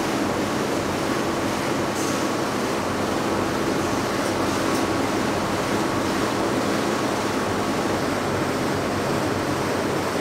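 Textile factory machinery running steadily: an even whirring noise with a low, constant hum and a few faint ticks.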